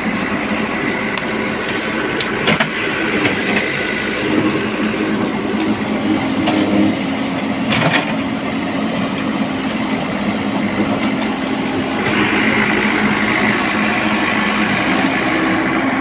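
Diesel engine of a JCB 3DX backhoe loader running steadily as the machine works, with a couple of sharp knocks. The engine gets a little louder about twelve seconds in.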